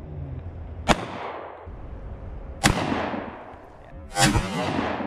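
Two shots from a compact semi-automatic pistol, a little under two seconds apart, each with a fading echo. About four seconds in comes a louder, longer blast from a pump-action shotgun.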